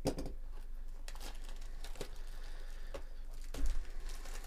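Crinkling and rustling of a cardboard trading card box and its wrapper being handled and opened, in a few short crackles about a second apart, the loudest about three and a half seconds in.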